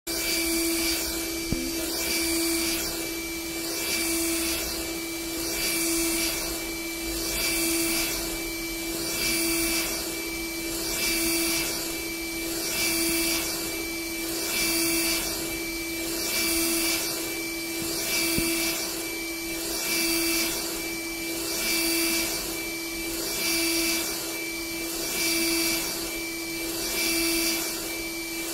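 NC-UV0406 flatbed UV printer running a print pass: a steady machine whir and hum from its motors and fans, swelling each time the print-head carriage sweeps across, about every second and a half to two seconds.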